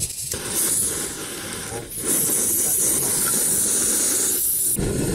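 Backpacking gas stove screwed onto a Jetpower canister, burning with a steady high hiss. The hiss grows louder about two seconds in and stops abruptly near the end.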